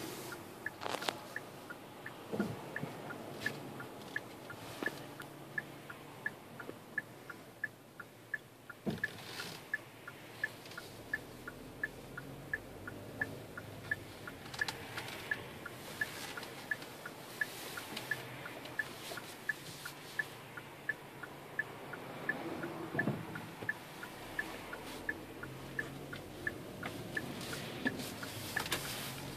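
Turn-signal indicator of a 2013 Hyundai Santa Fe ticking steadily inside the cabin, about one and a half ticks a second, with a few soft knocks here and there.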